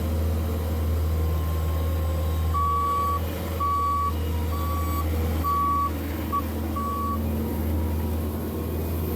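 A vehicle's reversing alarm beeping at one steady high pitch, about six beeps roughly a second apart, over a steady low engine hum.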